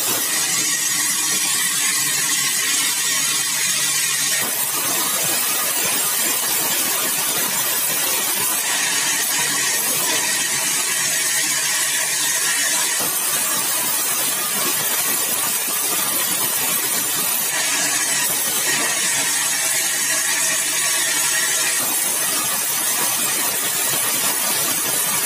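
Sawmill blade cutting through a yellow balau (bengkirai) hardwood log with a steady, loud, high-pitched running noise. Its tone shifts every four or five seconds.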